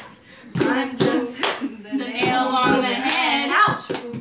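Several women clapping their hands in a rough beat, about two claps a second, while singing a rap song; in the second half their voices hold a long sung stretch.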